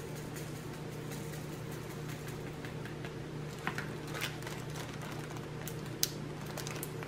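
Small plastic zip-lock bag of round diamond painting drills being handled, with a few faint clicks and rustles, over a steady low hum.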